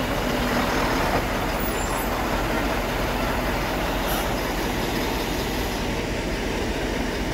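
Fire engine's diesel engine running steadily as the truck drives slowly past close by.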